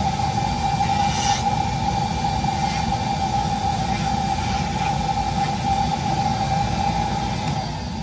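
Handheld rotary carving tool with a Kutzall Extreme flame burr running at a steady high whine while grinding a basswood carving blank, then switched off near the end and spinning down.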